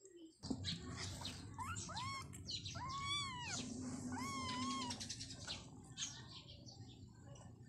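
Young kittens mewing: a few short high mews, then two longer ones that rise and fall in pitch, with soft rustling and small clicks near the end.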